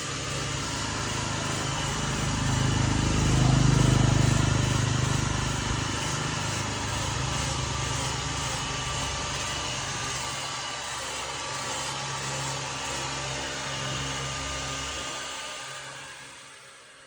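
A motor running steadily, with a low hum under a rushing hiss. It swells about four seconds in and fades out near the end.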